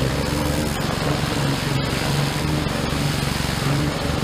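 Honda GC160 single-cylinder four-stroke engine of a gas pressure washer running steadily under load, with the hiss of the water jet. It is holding a steady run on a newly fitted replacement carburetor, where before it would run briefly and then quit.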